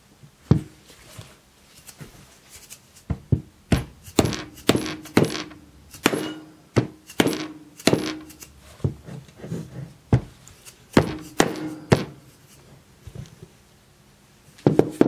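A hammer striking a steel upper control arm to drive a new press-fit upper ball joint into its bore: a couple of dozen sharp metallic blows, each with a short ring, in uneven clusters, with a pause before a final blow near the end.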